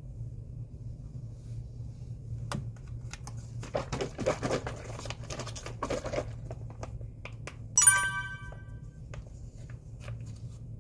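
Plastic diet-shake pouch crinkling and rustling as it is handled and opened, over a steady low room hum. Near the end comes a single short, bright ringing ding that fades within about a second.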